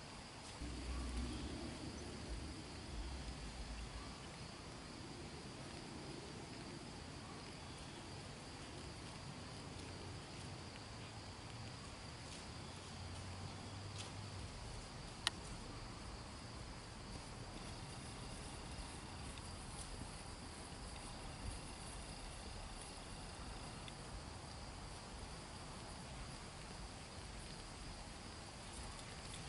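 Steady, high-pitched insect drone. A low rumble runs through the first few seconds, and there is a single sharp click about halfway.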